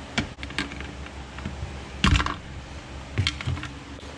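Light clicks and taps of a metal hook tool working inside the plastic fuel tank of a Stihl 028 chainsaw, fishing out the fuel line and filter, with a louder clatter about two seconds in.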